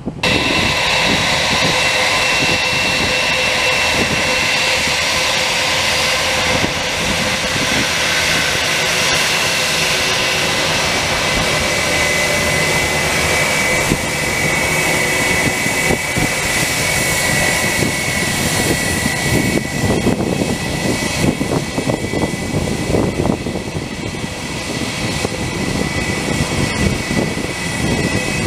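Jet airliner taxiing: the turbofan engines' steady whine, with several held high tones over a rumble. In the second half the rumble grows louder and uneven.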